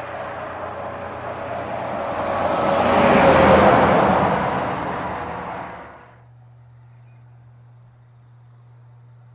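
A heavy truck passing at highway speed: tyre and engine noise swells to a peak about three and a half seconds in, its tone dropping slightly as it goes by. The sound cuts off abruptly about six seconds in, leaving only a faint low hum.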